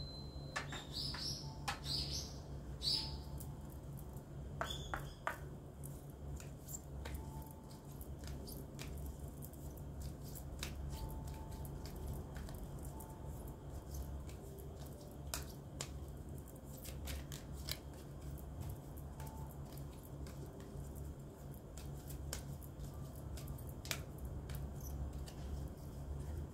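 Deck of tarot cards being shuffled by hand: soft, scattered clicks and slides of the cards, faint throughout. A few short bird chirps sound in the first few seconds over a steady low hum.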